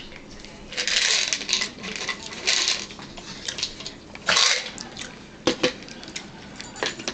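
Eating sounds: a fork scraping in a plastic meal tray in three short rasps, then a few sharp clicks of the fork against the tray.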